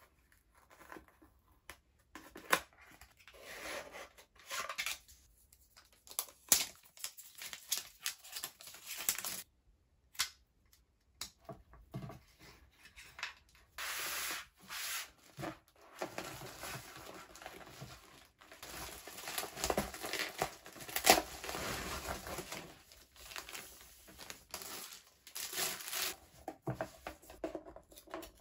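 Hands unpacking small accessories: scattered light taps and clicks of cardboard and plastic parts. From about halfway comes a long stretch of tearing and crinkling plastic packaging as clear plastic product bags are handled.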